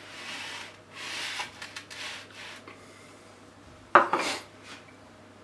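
Pastry brush bristles swished and scraped around a small glass of melted butter, three scratchy strokes. About four seconds in comes one sharp knock as the glass is set down on the counter.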